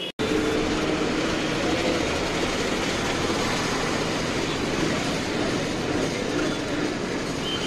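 Steady rumble and road noise from inside a moving vehicle in city traffic, with a low engine drone beneath it. It starts abruptly just after the beginning.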